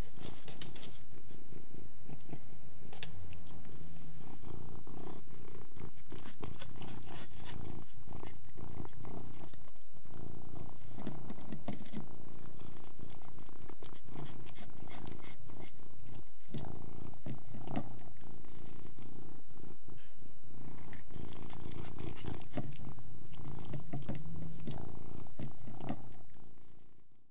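A Persian cat purring steadily, with quick clicks and smacks of it eating mixed through. The sound fades out at the very end.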